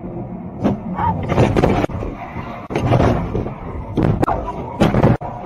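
Road and engine noise inside a moving car, broken by several clusters of loud, sudden knocks and clatters.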